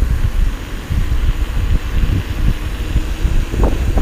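Wind buffeting the action camera's microphone as a mountain bike rolls fast along a paved road, a loud, gusty low rumble mixed with tyre noise on the asphalt.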